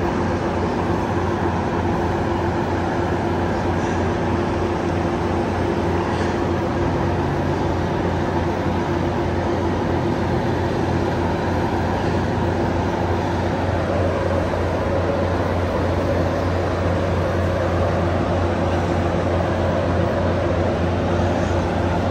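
Train running with a steady, even noise, a low hum and a constant higher tone underneath; a second tone comes in about two-thirds of the way through.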